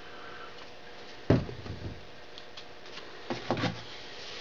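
Handling knocks on a hard work surface as a plastic glue bottle and a cardboard rocket body tube are put down and picked up: one sharp knock about a second in, then a quick cluster of lighter knocks near the end, over a faint steady hum.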